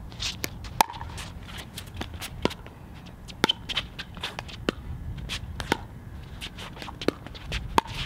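Pickleball paddles striking a plastic ball in a doubles rally: sharp pocks about once a second, with fainter hits in between.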